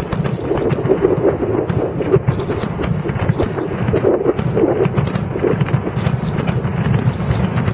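Aerial fireworks bursting in quick succession, their booms running together into a continuous loud rumble with crackles.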